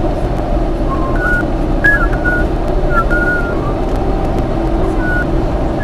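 Steady rumble of a vehicle driving, with a whistled tune of short stepping notes over it.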